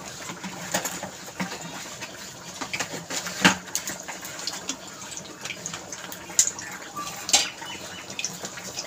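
Cooking oil poured from a plastic bottle into a kadai over bay leaves, with a steady hiss and scattered sharp crackles and clicks. The loudest crackle comes about three and a half seconds in.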